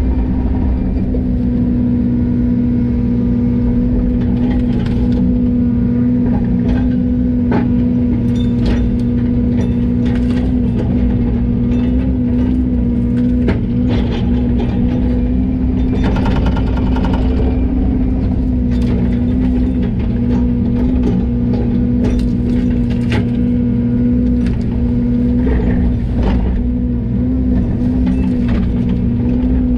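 Diesel engine running steadily at a constant speed, with scattered clicks and clanks from machinery.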